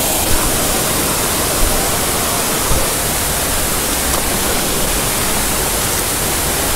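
Steady rush of flowing water, an even hiss with no let-up, with a few brief splashes in the shallows about a third of a second, a second and a half, and nearly three seconds in.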